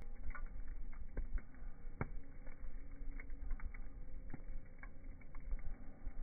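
A redwood log burning on a wood fire, crackling with irregular sharp pops and snaps every second or so over a low rumble.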